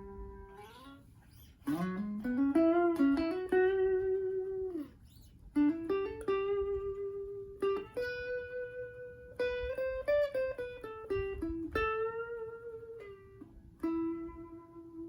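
FireFly FFTL Telecaster-style electric guitar with Alnico 5 pickups, played as single-note lead phrases. The phrases include string bends, slides and held notes, with short pauses between them.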